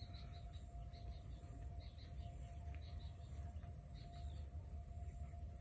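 Small birds chirping, many short high chirps coming irregularly, over a steady low rumble and a thin, steady high-pitched hum.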